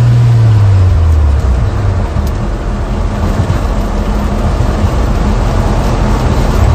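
Car engine and road noise heard from inside the cabin at speed. The engine note drops over the first second and a half as the car slows, then settles into a steady loud rumble.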